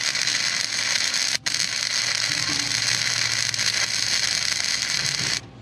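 Wire-feed (MIG) welder welding the engine mounting plate: a steady crackling hiss of the arc. It breaks off for a moment about a second and a half in, then stops abruptly shortly before the end.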